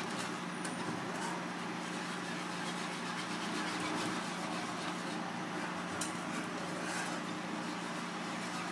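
Wire whisk beating a sauce in a small cast-iron pan, with a few faint clinks of the wires against the pan, over a steady kitchen hum and hiss.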